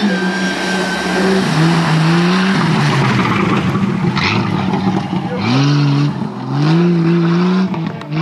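Off-road rally 4x4's engine revving hard under load, its pitch climbing, dropping with each gear change and climbing again several times, over the rush of tyres and spray through mud and water.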